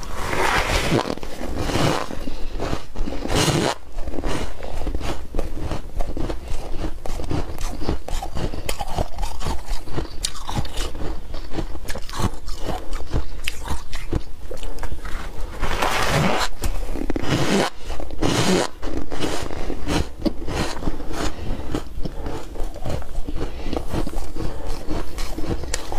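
Ice being bitten and chewed close up: a dense, continuous run of squeaky, crunchy cracks, with a few heavier bites near the start and again about two-thirds of the way through.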